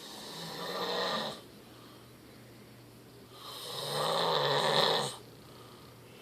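A sleeping man snoring: two long snores, the first about a second and a half long, the second starting about three seconds in, longer and louder.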